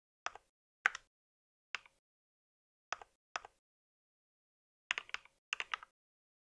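Mechanical keyboard keystrokes: five single key presses spaced out over the first few seconds, then two quick runs of typing about five seconds in.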